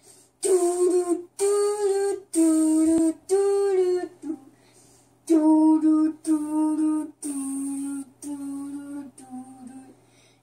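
An eight-year-old boy singing unaccompanied in long held notes. He sings a phrase of four notes, pauses about four seconds in, then sings a second phrase of five notes that steps down in pitch.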